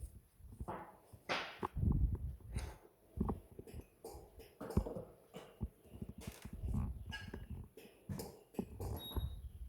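Irregular soft thumps, knocks and clicks of objects being handled, with no steady hiss or motor.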